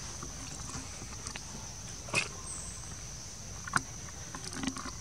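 Forest background with a steady high-pitched hum, broken by two short, sharp snaps, one about two seconds in and one near four seconds in.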